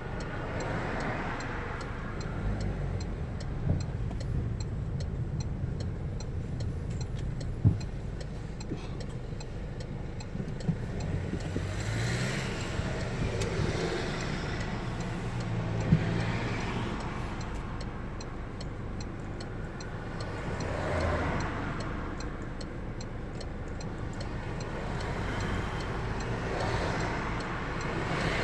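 Car engine and road noise, steady and low, with a faint regular ticking throughout and a few swells of passing traffic.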